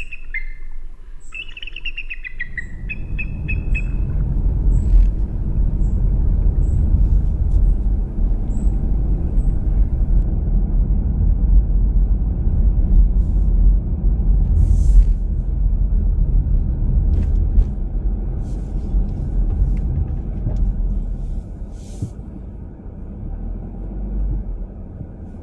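Steady low rumble of road noise heard inside a car cabin while driving a wet road, taking over a few seconds in after a few short high bird calls.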